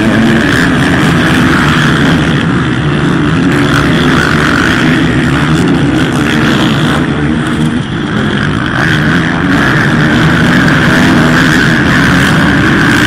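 Small two-stroke youth motocross bikes racing, their engines running hard at high revs. The sound is loud and continuous, dipping briefly about eight seconds in.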